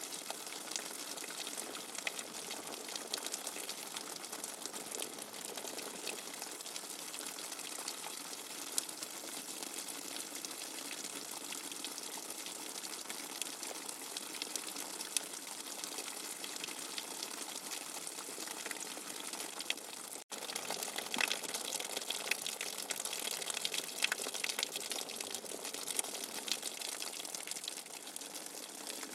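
Steady rushing, gushing water noise used as sleep white noise, with tiny splashing flecks throughout. It breaks off for an instant about twenty seconds in and comes back slightly louder.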